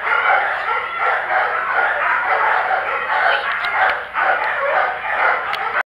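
Many kennel dogs barking at once, their barks overlapping into a continuous noise without a break.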